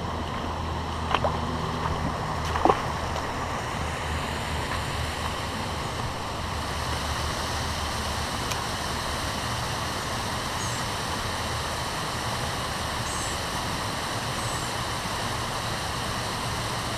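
Steady rush of flowing river water, with a few sharp clicks in the first three seconds.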